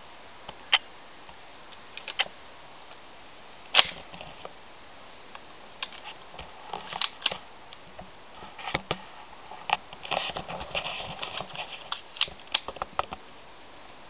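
Scattered sharp clicks and cracks at irregular intervals, the loudest about four seconds in and a denser cluster near the end; none is as loud as a full shotgun blast.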